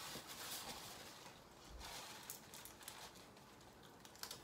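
Faint chewing of food, with a few light clicks and rustles from a burger's foil wrapper.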